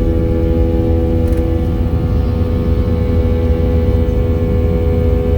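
Airliner jet engines running at takeoff power: a steady low rumble with a constant hum of several tones above it.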